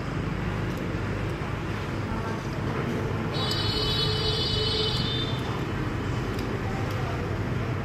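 Steady rumble of street traffic, with a high-pitched tone lasting about a second and a half near the middle.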